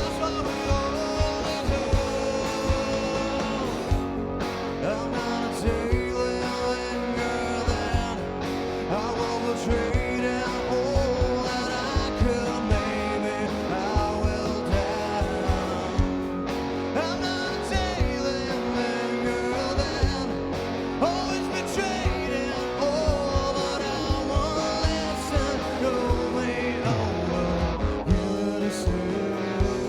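Live rock band playing a song: electric guitar lines over a steady drum beat.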